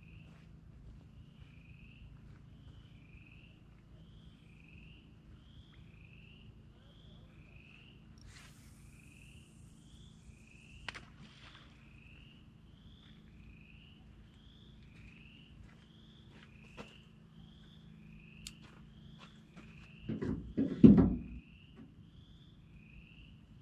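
A faint, regular chirping call repeats about twice a second over a low, steady hum. About twenty seconds in there is a loud burst of knocking and rustling as a rod is handled at the truck bed.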